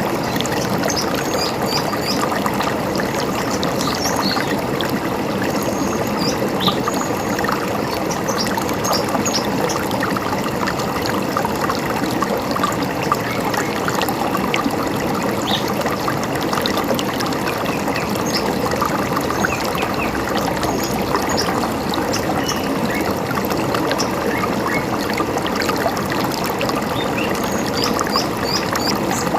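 A river running steadily over stones, with short bird chirps scattered throughout.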